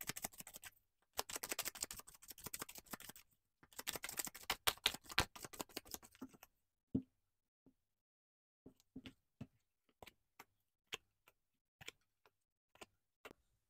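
A deck of oracle cards shuffled by hand in three stretches of dense papery crackle. Then about a dozen light separate taps and flicks as single cards are laid down one at a time on the table.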